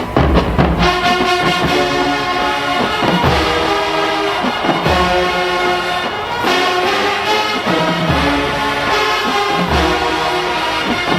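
Marching band brass section playing loud held chords, with low drum hits every couple of seconds.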